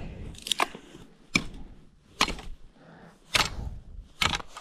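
Five sharp knocks, spaced roughly a second apart, with quiet gaps between them.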